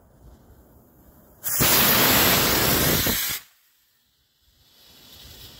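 Estes C6-5 model rocket motor firing: a loud, even rushing hiss starts suddenly about a second and a half in, holds for about two seconds, then cuts off sharply as the propellant burns out.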